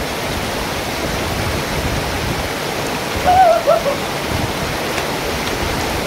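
Waterfall pouring, a steady rush of falling water close by. A brief voice cuts in about three seconds in.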